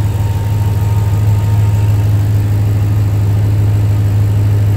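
Ram 1500 TRX's supercharged 6.2-litre Hemi V8 idling, a steady low rumble heard from the open engine bay.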